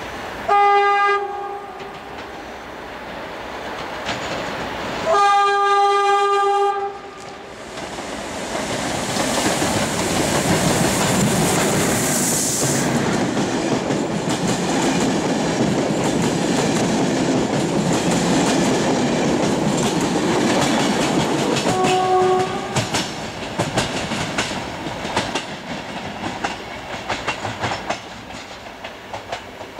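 Romanian class 41 electric locomotive (41-0606-8) sounding its horn as it approaches: a short blast, then a longer one. Its passenger coaches then pass close by with a loud steady rumble and wheel noise. Another short horn blast comes about 22 seconds in, and the clickety-clack of wheels over rail joints fades as the train draws away.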